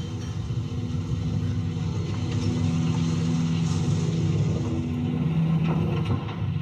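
Chairlift drive motor running with a steady hum and whine. A second, higher tone comes in about two seconds in and drops out around five seconds, with a few light clicks near the end.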